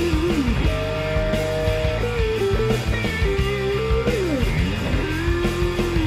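Background music: a guitar-led instrumental with held melody notes that slide in pitch, including a sliding drop about four seconds in, over a steady accompaniment.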